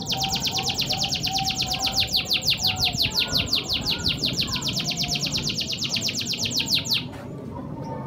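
Canary song: a fast, even trill of quick descending notes, about eight a second, which stops abruptly about seven seconds in.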